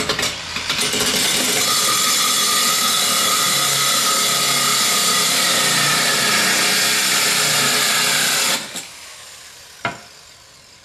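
Makita 9227C variable-speed grinder driving a 2.5-inch diamond core bit, grinding a hole through the rib of a concrete roof tile. It runs steadily with a faint whine, then stops about eight and a half seconds in. A single knock comes about a second later.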